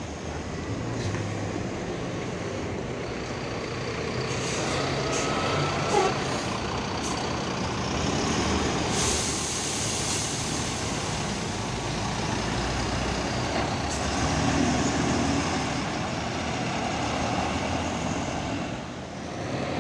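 Mercedes-Benz OH 1526 coach pulling away, its diesel engine running steadily, with several short air hisses from its air system between about four and ten seconds in.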